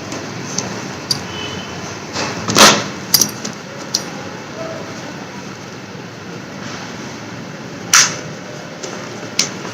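Scattered clicks and knocks of a motorcycle helmet being handled as its inner head padding is pressed back into place, the loudest about two and a half seconds in, over a steady background hiss.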